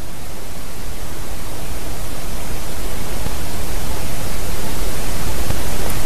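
Wind rushing over an outdoor nest-camera microphone: a steady, loud hiss with a low rumble that slowly grows louder.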